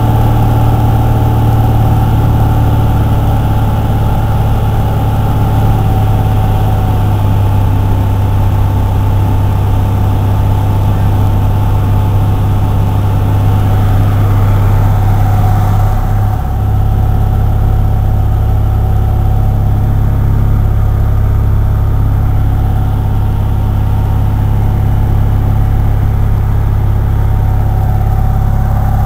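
Cessna light aircraft's piston engine and propeller droning steadily in flight, heard from inside the cabin. A little over halfway through the sound dips briefly and then carries on slightly duller.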